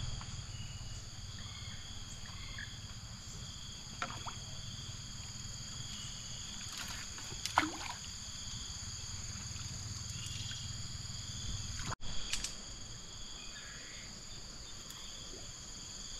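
Steady high-pitched insect chorus over a low outdoor rumble, with a few brief sharp knocks or splashes; the loudest comes about halfway through.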